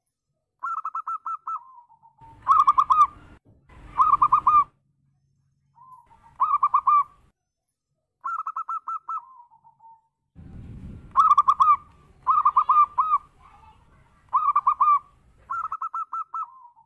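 Local zebra dove (perkutut) cooing: about nine phrases, each a quick run of rhythmic notes ending in a lower, drawn-out note, some phrases louder than others.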